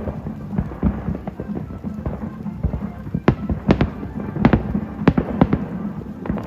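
Aerial fireworks bursting in a rapid string of sharp bangs, growing denser and louder about halfway through.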